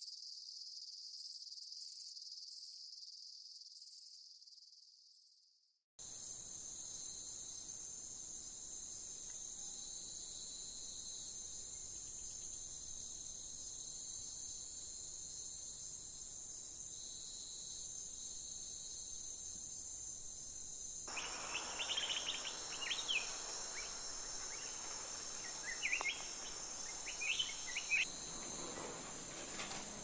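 Steady high-pitched insect trilling, which fades to silence about five seconds in and starts again a second later. From about two-thirds of the way through, a few short, sharp chirps sound over it.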